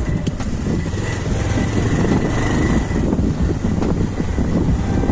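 A small two-wheeler riding over a rough dirt road: a steady engine drone under wind buffeting on the microphone and the rattle and rumble of the road surface.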